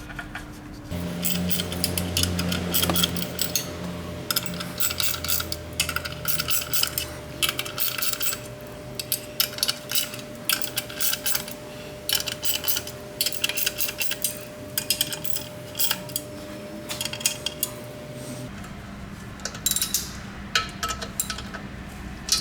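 Repeated metallic clinks and clicks of hand tools on metal parts while bolting on a clutch pressure plate, over a steady background hum.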